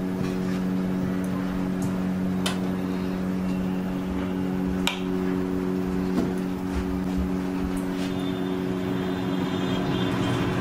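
A steady low electrical hum made of several even tones, with a couple of sharp clicks about two and a half and five seconds in.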